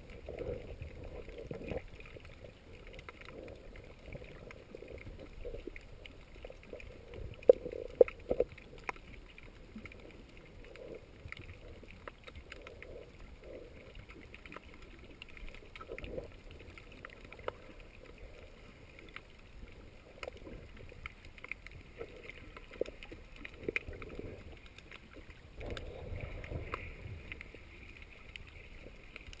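Muffled underwater water noise picked up by a submerged camera: a low wash with scattered small clicks and knocks, and two sharper knocks about seven and eight seconds in.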